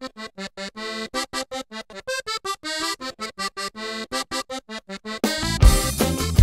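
Zydeco music: a quick staccato melody line played alone, then the full band with bass and drums comes in about five seconds in.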